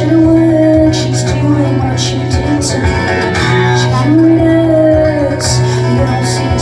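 Live rock band playing loudly: guitars over a steady low bass note, a held melodic line that glides between pitches, and regular cymbal crashes.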